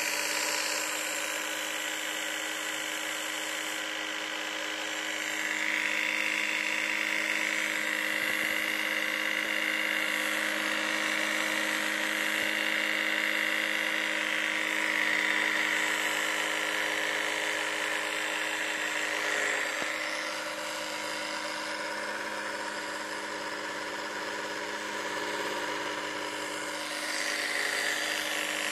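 Mercedes-Benz SLR Scalextric slot car's small electric motor running steadily with a high whine that swells slightly in places.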